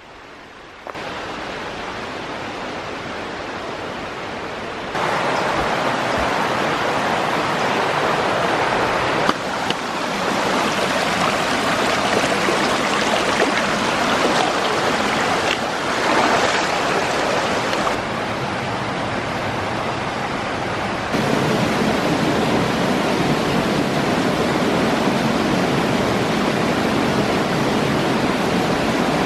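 Rushing creek water, a steady loud rush that steps up or down in level several times.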